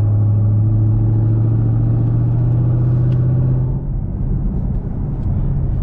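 Camaro SS's 6.2-litre V8 with Kooks long-tube headers and a Borla ATAK exhaust, heard from inside the cabin, droning steadily under load as the car gets onto the freeway. About four seconds in the note drops and turns rougher.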